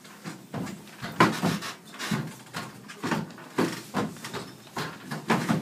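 Footsteps and scuffing of several people walking across a stage: a run of soft knocks about twice a second.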